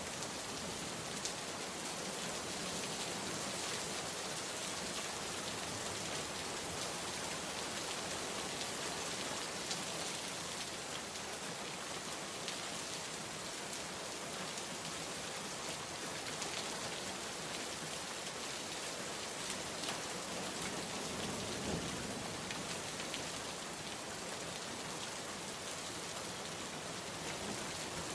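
Steady rain falling, a continuous hiss with scattered drop ticks.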